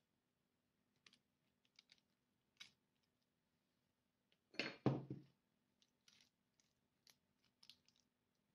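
Faint clicks and scrapes of a bowl and spoon as a wet potato mixture is tipped onto parchment paper in a frying pan and spread out, with one louder rustling plop about halfway through.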